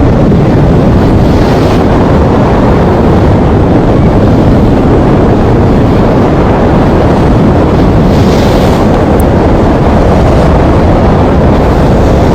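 Heavy wind noise buffeting the microphone aboard a moving motorboat, with the boat's running and water noise underneath: a loud, steady, deep rush.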